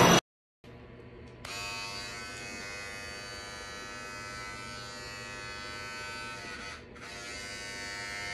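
Electric hair clipper switching on about a second and a half in and running with a steady buzz while trimming the side of the head, its comb guard fitted backwards. The buzz dips for a moment near the end.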